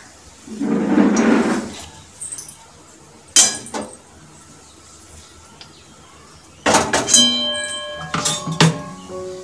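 Mustard oil pouring and glugging out of a plastic bottle into an empty metal kadai for about a second near the start. Later a single sharp metal clink, and near the end a cluster of clinks with ringing tones.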